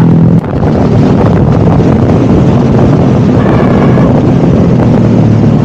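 Motorcycle engine running on the move, heavily buffeted by wind noise on the camera's microphone; the engine's low hum is plain at first and is then mostly covered by the steady rush of wind.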